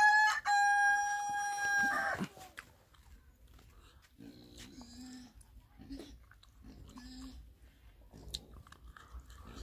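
Rooster crowing, ending in one long held note of about two seconds. After it come faint, short, low sounds.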